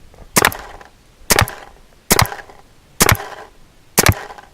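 JT paintball gun firing repeatedly at point-blank range: five sharp pops, about one a second.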